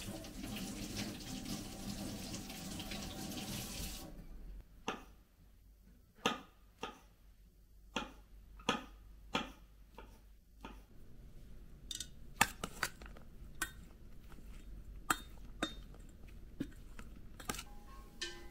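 Water running for about four seconds and then cutting off, followed by scattered sharp clinks and knocks of dishes being handled.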